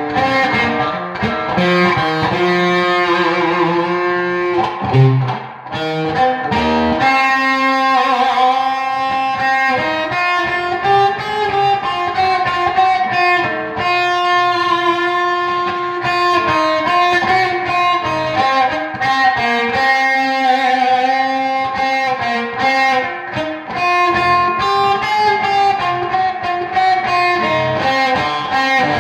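Instrumental music led by guitar, with sustained melodic notes.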